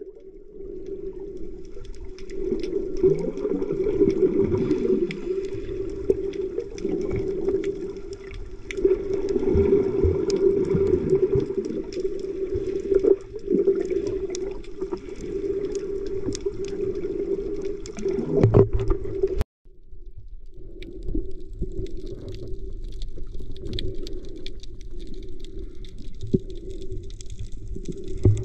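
Underwater sound picked up by a camera below the surface: a steady low hum over water noise, with scattered faint clicks and crackles. The sound drops out briefly about two-thirds of the way through.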